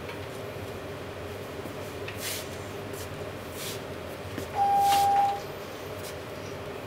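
Steady room hum with a few faint rustles and knocks as the receiver cart is handled. About four and a half seconds in comes a single electronic beep, one steady tone lasting under a second, the loudest sound.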